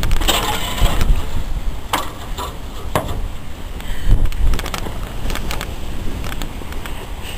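Strong wind buffeting the microphone, a steady low rumble, with scattered clicks and knocks throughout.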